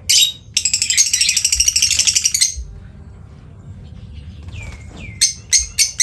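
A group of lovebirds chattering: a sharp chirp, then a fast run of high, rapid chirps for about two seconds. After a lull, a string of short, shrill calls comes near the end.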